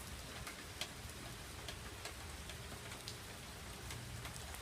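Rain falling: a steady hiss with scattered drops ticking.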